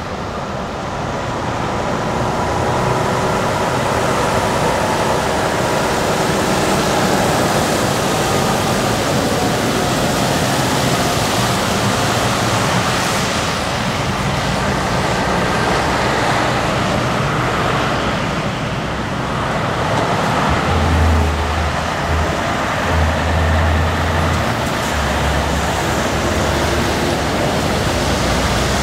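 Heavy diesel dump trucks driving past on a wet road, engines running and tyres hissing on the wet asphalt, with a few deep low rumbles about two-thirds of the way through.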